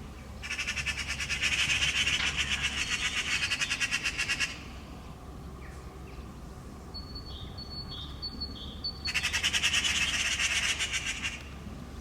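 Eurasian magpies giving their rapid rattling chatter in two long bouts, the alarm call of a pair mobbing a cat near their fledgling.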